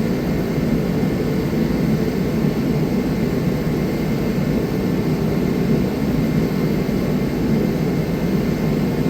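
A steady mechanical drone with a faint thin whine above it, holding unchanged throughout.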